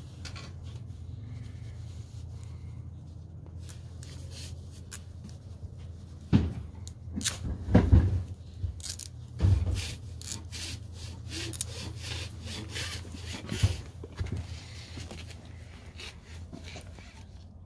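Duct tape being pulled off the roll and rubbed down around the end of an ABS pipe: crackling, tearing and rubbing noises with a few handling bumps, busiest from about six seconds in, over a steady low rumble.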